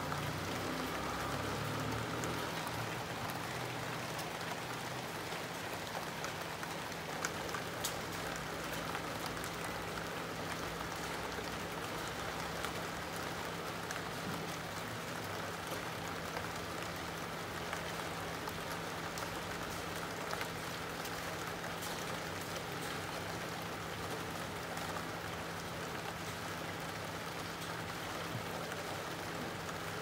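Steady rain falling, with scattered individual drops ticking on hard surfaces and a faint steady low hum underneath.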